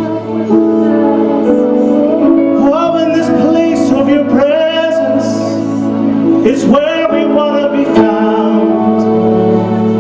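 Live worship music: a man and a woman singing a slow song over acoustic guitar and long held keyboard chords.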